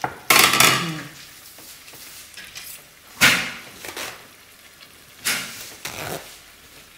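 Dishes clattering in a few short, sharp knocks, about four in all. The loudest come near the start and about three seconds in.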